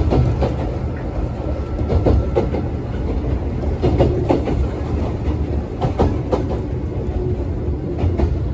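Interior of a moving electric train car: a steady low rumble from the running gear, with the wheels knocking over rail joints in quick pairs about every two seconds.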